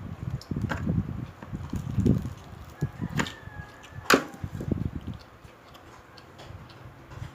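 Close-up chewing and crunching of crispy deep-fried pork leg skin: irregular chomping with a few sharp cracks, the loudest about four seconds in, then quieter chewing near the end.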